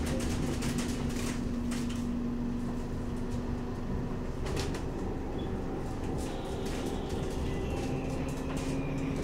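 Inside a CAF Urbos 3 tram on the move: a steady running rumble and motor hum that changes pitch partway through, with a few short knocks and rattles. Near the end a faint high whine falls in pitch.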